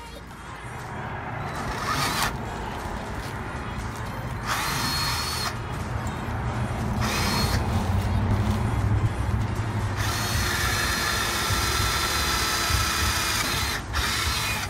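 Red cordless drill boring holes through a perforated sand-scoop basket, running in three short bursts and then a longer run of about four seconds near the end, with the motor's whine rising as it spins up.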